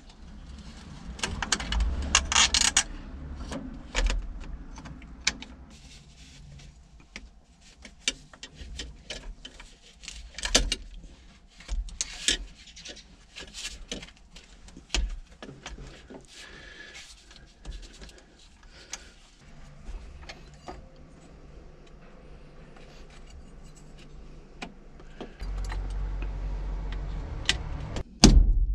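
Hands and metal parts rubbing, scraping and clicking while working around a small truck engine, in an irregular run of short sounds. It is busiest and loudest about two seconds in, and a low rumble and a heavy knock come near the end.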